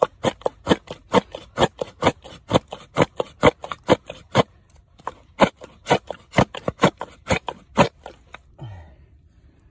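Rhythmic wet squelching in soft mud, about two sharp squelches a second, pausing briefly about halfway and stopping near the end.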